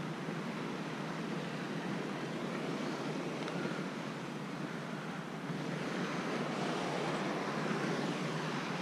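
Steady rushing of ocean surf mixed with wind, a little louder in the last few seconds.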